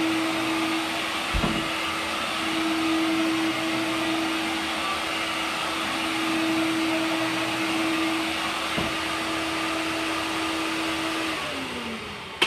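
A 1994 Fantom upright vacuum's 11-amp Lamb motor runs steadily with no belt fitted, so the brush roll is not turning: a loud rush of air with a steady hum. Two brief knocks come about a second and a half in and near nine seconds. Near the end the motor is switched off and its pitch falls as it winds down.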